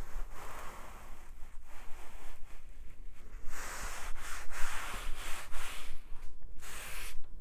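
Paper towel wiped in repeated strokes across a rusty steel computer-case panel wet with CLR rust remover, a scratchy hiss that comes and goes with each stroke and short pauses between.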